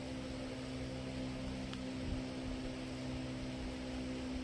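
Steady background hum with a faint hiss, and one faint tick about a second and a half in.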